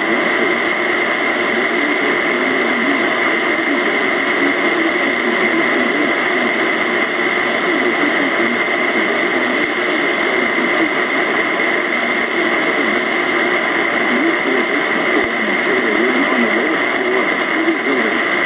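Steady radio static hiss from a weak, fading weather-warning broadcast signal, with a constant whine and only faint wavering traces of the reading voice buried under the noise.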